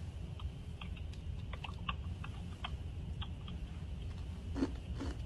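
Typing on a computer keyboard: soft, irregular key clicks over a low steady hum, with two louder clicks near the end.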